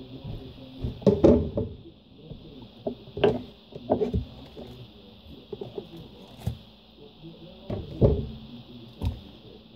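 A plastic cutting board being shifted and set down on the edge of a stainless-steel sink, then tomatoes and a knife laid on it: a string of irregular knocks and clatters over a steady high hiss.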